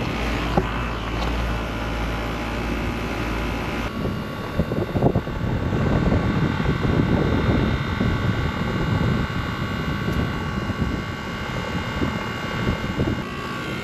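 Rooftop air-conditioning condensing unit running during refrigerant charging: a steady drone of compressor and condenser fan. About four seconds in, the low hum drops away and a rough, fluctuating rumble of wind on the microphone takes over, with the unit's steady tones still underneath.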